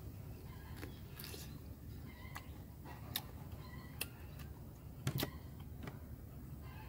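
Close-up chewing of a mouthful of raw cucumber: several crisp crunches and clicks spaced irregularly, the loudest about five seconds in.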